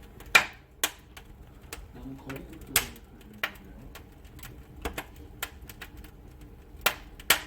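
Fire crackling in a cast-iron fireplace: irregular sharp pops, the loudest about half a second in, just under three seconds in, and twice near the end.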